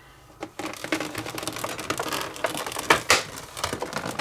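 Plastic packaging and small kit parts being handled: a quick, irregular run of crinkling and clicking, louder about three seconds in.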